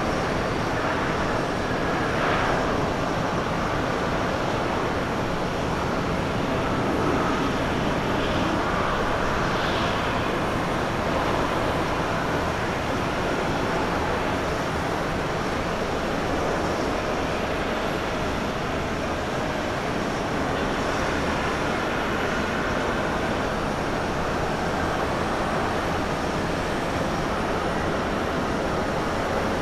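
Boeing 777-300ER's twin GE90 turbofans running at low thrust as the airliner taxis slowly after landing, a steady, even jet whine and rush heard at a distance.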